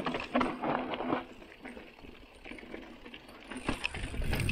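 Mountain bike rattling over a rough, rocky trail: scattered metallic clicks and clatters from the bike, busier in the first second and again near the end, quieter in between.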